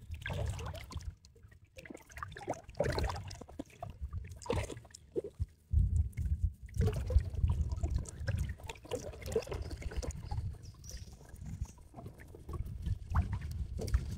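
Shallow river water sloshing and splashing in irregular strokes as someone wades, over an uneven low rumble.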